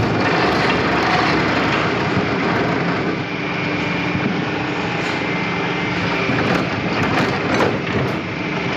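Power wood saw running and cutting wood: a steady mechanical noise with a faint high, steady tone that comes in about a third of the way through.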